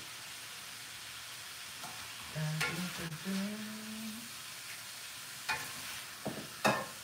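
Stir-fry sizzling in a hot frying pan as it is stirred, with a steady hiss and the utensil knocking against the pan a few times, about three, five and a half and six and a half seconds in.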